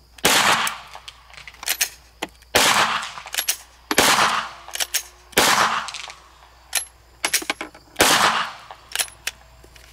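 Five 9mm pistol shots from a Glock 17 Gen 3, fired slowly and at uneven gaps, each with a short echo, with fainter clicks in between. The pistol is fouled with sand and dirt: the trigger has become hard to pull and the slide has trouble returning to battery.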